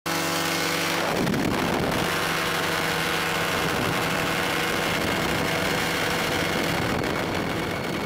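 Paratrike's engine and propeller running steadily at high power through the takeoff roll and lift-off, with a sweeping shift in pitch about a second in.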